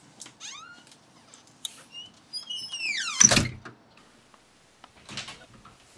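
A door creaking on its hinges in falling squeaks, then shutting with a loud thud about three seconds in.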